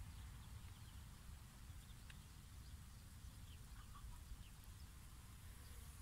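Near silence: a faint low outdoor rumble, with a few faint short high chirps about halfway through.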